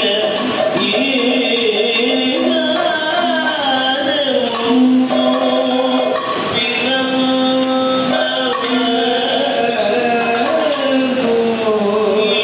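Kathakali music: a voice sings long, held, ornamented lines that waver and glide in pitch, over drum and percussion strikes.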